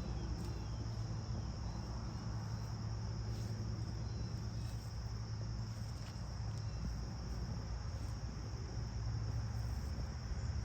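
Insects, crickets by their sound, keeping up a steady, unbroken high-pitched chorus, with a steady low rumble beneath.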